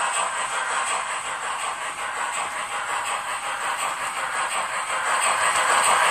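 H0-scale model steam locomotive with an onboard sound module running on the track, its wheels and the train rattling over the rails. The sound grows louder near the end as the locomotive passes close by.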